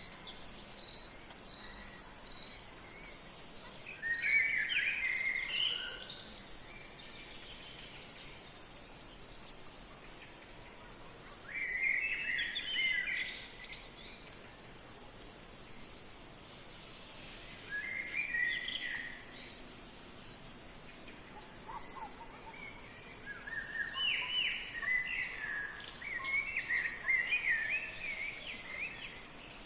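Rainforest ambience: an insect's high, rapidly pulsing trill runs steadily underneath, while birds call in warbling bursts every several seconds, busiest near the end, with a few faint high chirps above.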